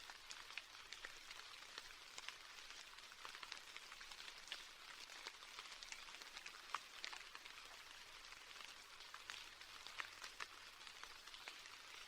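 Faint, steady rain falling on a surface, with many individual drops ticking irregularly over an even hiss.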